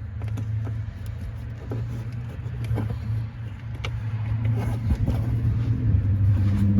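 Steady low drone of a running vehicle engine, growing louder toward the end. A few light clicks and taps come from handling the plastic clip and zip tie.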